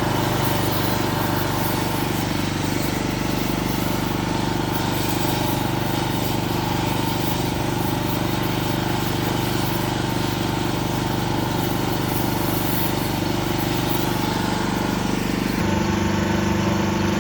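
An engine running steadily at a constant speed, its note shifting slightly near the end.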